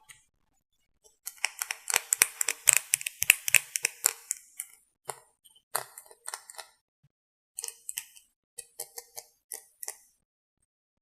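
Crisp clicking and tapping from makeup tools and containers handled close to the microphone: a dense run of quick clicks for a few seconds, then scattered single clicks. Noise reduction has cut the gaps between the clicks to dead silence.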